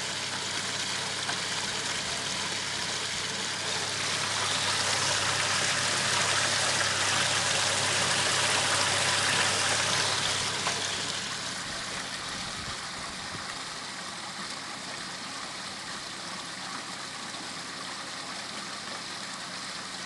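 Water pouring and splashing from a small stainless-steel bakki shower and waterfall-blade koi pond filter, with a steady low hum underneath. The splashing is louder from about four seconds in and eases off to a softer steady flow after about ten seconds.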